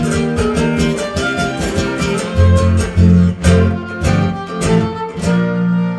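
Live huapango music from a string band: a violin melody over rhythmically strummed guitars, played loud for dancing. The strumming breaks off about five seconds in, leaving a held low chord.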